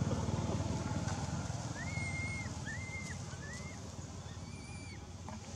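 An infant long-tailed macaque gives four short, high coo calls, each arching up and down, from about two seconds in, over a low rumble that is loudest at the start.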